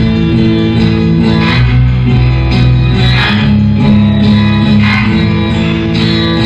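Music: a track with sustained pitched chords that change every second or two.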